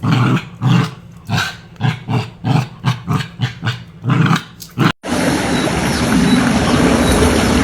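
A dog barking in a rapid run of about a dozen barks, roughly two a second, that cuts off abruptly about five seconds in, giving way to a steady rushing background noise.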